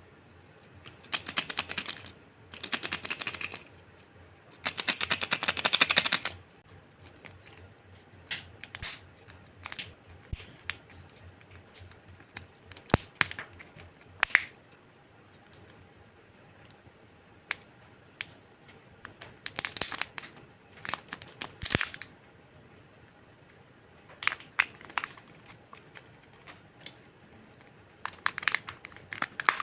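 Kinder Joy egg's plastic-foil wrapper crinkling and tearing open in three bursts, followed by scattered clicks and taps of the plastic egg halves and contents being handled, with more wrapper crinkling twice later on.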